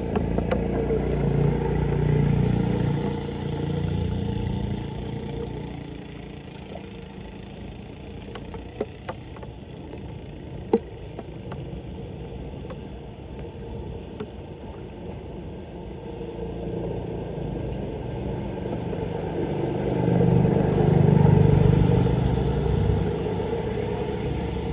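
Vehicles passing on the street: an engine rumble that swells and fades twice, about two seconds in and again about twenty-one seconds in. A single sharp click about eleven seconds in.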